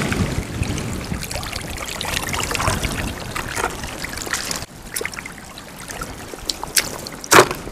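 Shallow seawater trickling and running over wet sand, with soft footsteps on the wet beach. The rushing noise drops off sharply a little over halfway, and a single sharp thump comes near the end.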